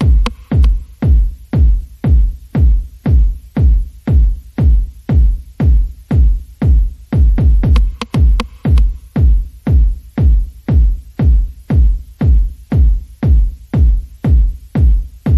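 Electronic background music driven by a heavy kick drum on a steady beat of about two a second.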